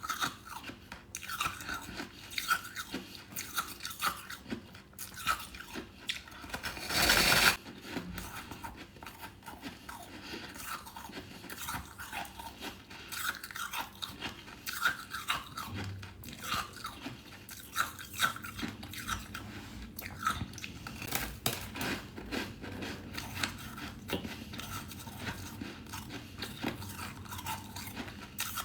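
A person biting and chewing hard freezer frost, with a steady run of crisp crunches and crackles. About seven seconds in comes a louder crunch lasting about a second.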